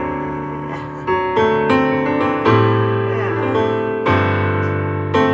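Recorded music: an instrumental piano passage, a run of struck chords over held bass notes, played back through wooden Magnavox loudspeakers driven by a Quad 606 power amplifier.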